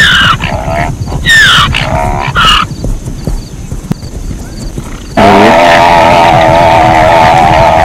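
Zebra calling: a few sharp yelps falling steeply in pitch in the first three seconds, then from about five seconds in a long, loud, wavering call.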